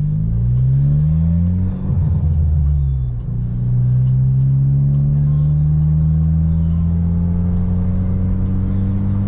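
Car engine heard from inside the cabin, pulling away. Its pitch rises and falls twice in the first three seconds as the car shifts or changes speed, then settles into a steady drone that slowly climbs in pitch.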